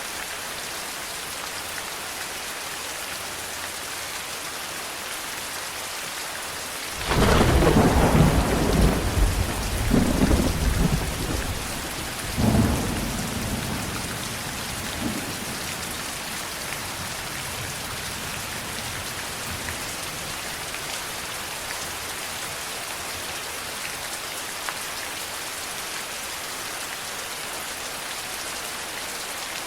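Steady rain, with a sudden thunderclap about a quarter of the way in that rumbles on for several seconds in two or three further swells before dying away under the rain.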